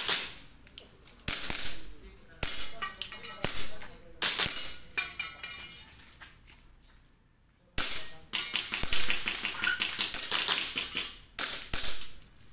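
Airsoft pistol firing strings of quick shots, several groups of sharp cracks, with a lull of a couple of seconds midway before a faster string.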